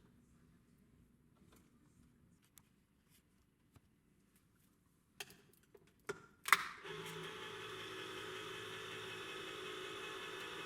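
A few clicks and a sharp snap as the lever of a Farberware electric can opener is pressed down on a can. Then its small motor starts, running with a steady hum as it turns the can.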